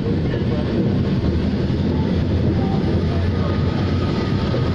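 Passenger train coach running along the track: a steady rumble of wheels on rail, heard from the open side of the moving coach.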